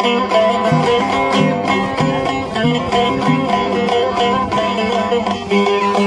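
Bağlama (saz) playing an instrumental passage of a Turkish folk tune (türkü), a quick, continuous run of plucked notes.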